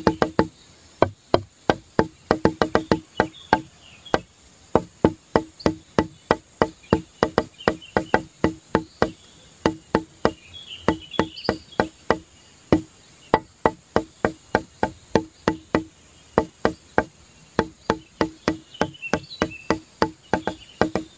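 Background music made of hollow wood-block-like knocks in a quick, uneven rhythm of about three or four a second, with faint high chirps above them.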